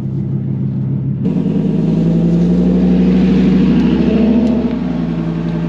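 Dodge Ram SRT-10's 8.3-litre Viper V10 pulling away through its side-exit exhaust. About a second in the sound changes abruptly from the in-cab sound to the truck heard from outside, then swells as it drives off and eases slightly near the end.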